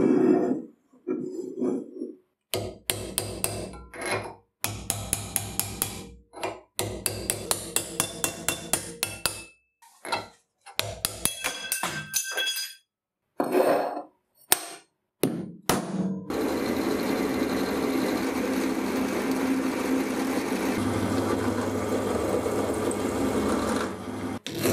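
Bursts of rapid hammer blows on a rusty steel shaft clamped in a vise, several strikes a second. From about two-thirds of the way in, this gives way to the steady running and cutting of a milling machine's chamfer cutter biting into steel plate.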